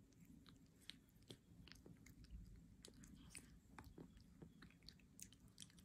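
Cat eating wet food from a plastic tray: faint, irregular chewing and lip-smacking clicks.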